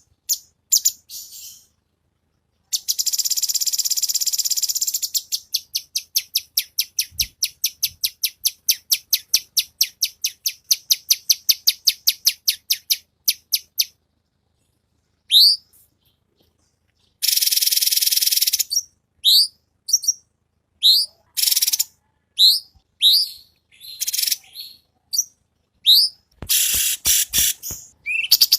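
Cucak cungkok bird singing a loud, high-pitched song. It starts with a buzzy trill, then a long string of rapid repeated notes at about four a second. After a short gap come upward-sweeping whistled notes about once a second, and a dense burst of chattering near the end.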